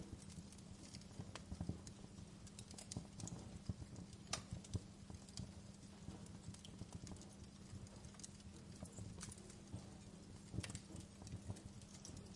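Wood fire crackling in a fireplace: frequent irregular sharp pops and snaps over a steady low rumble.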